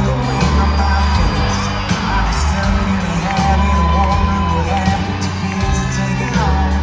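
Live country band playing in an arena: electric guitars, bass and drums, with a lead vocal line holding a long note in the middle.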